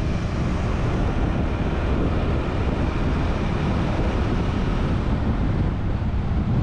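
Steady wind noise buffeting the microphone of a motorcycle ridden at highway speed, with the bike's running noise underneath.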